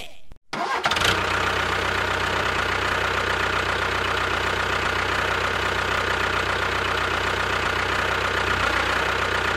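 A motor running steadily with a low, even hum and a fast knocking pulse, starting about a second in.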